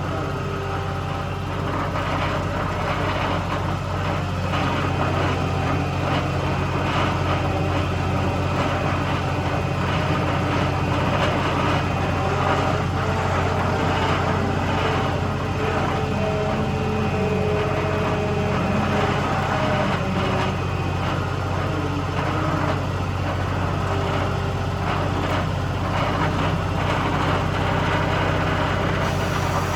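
New Holland skid steer loader's diesel engine running steadily at an even speed.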